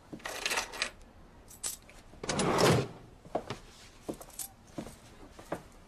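Handling and movement noises: a jangling rattle lasting under a second, about two and a half seconds in, among scattered light clicks, then a few light knocks at roughly even intervals.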